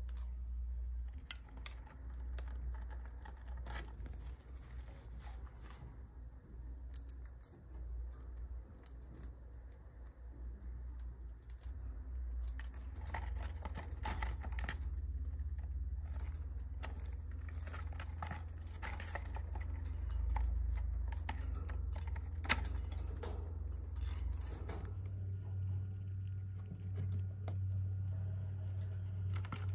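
Pet rats scrabbling and gnawing at a cardboard treat tube, with many small clicks, scratches and tearing sounds and light metallic jangles, over a steady low hum.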